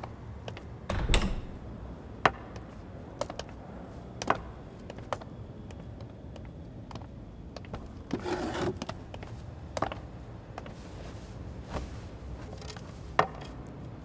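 Quiet dining-room sounds: scattered light clicks and knocks, a dull thump about a second in, and a short scrape around eight seconds in.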